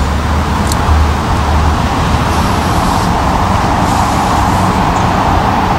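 Steady outdoor road-traffic noise, a continuous rumble and hiss that swells slightly in the middle.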